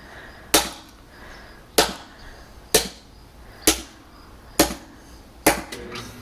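Heavy blows smashing a collectible statue's wing inside a plastic bag: six strikes about a second apart, breaking it into small pieces, with a lighter knock near the end.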